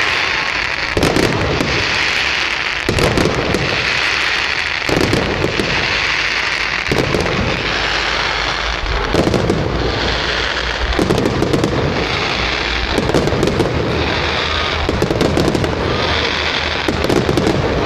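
Fireworks display in full barrage: a dense, continuous run of bangs and crackling that swells in waves about once a second.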